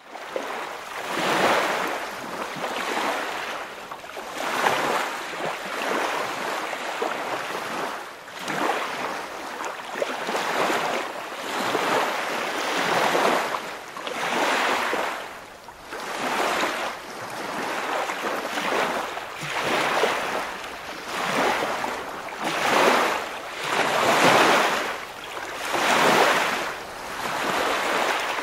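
Sea waves surging and washing, the rush swelling and falling away about every one and a half seconds.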